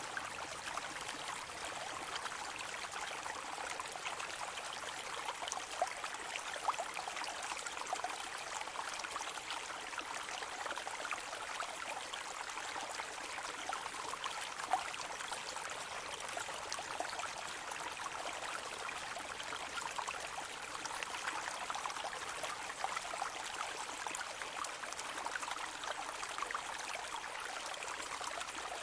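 Rain falling on a lake: a steady patter of drops hitting the water surface, dense with tiny splashes and a few louder single drops.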